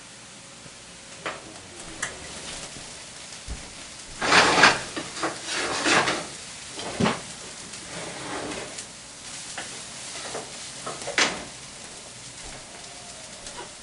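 Food sizzling in a frying pan on a gas stove, flaring up loudly in several bursts from about four to six seconds in. A few sharp knocks of pans and utensils are heard among the sizzling.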